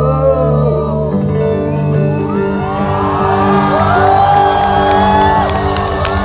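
Live band music with acoustic guitar and held notes. A sung vocal line comes in the first second, then the crowd shouts and whoops over the music.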